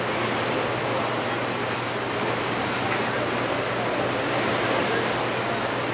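Gentle ocean surf from small waves washing ashore, a steady, even hiss with no breaks.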